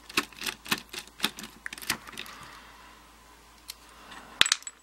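Rapid, irregular light metal clicks and taps from a Master Lock padlock being handled and taken apart, thinning out after about two seconds, with a few sharper clicks near the end.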